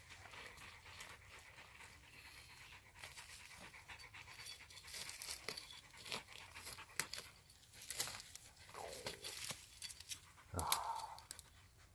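Hand trowel digging and scraping into dry, stony soil in a run of short, irregular scrapes, with one louder knock near the end; a dog pants nearby.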